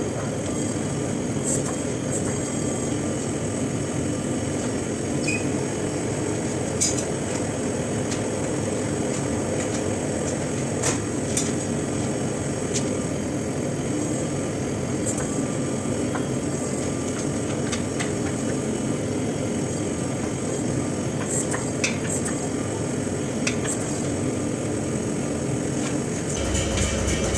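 Steady, even roar of shop equipment with a few light metallic clinks scattered through it; music comes in near the end.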